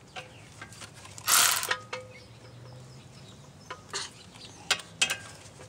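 Metal hand tools clicking and ratcheting on the front suspension bolts: scattered sharp clicks, with one short, loud, rasping burst about a second and a half in.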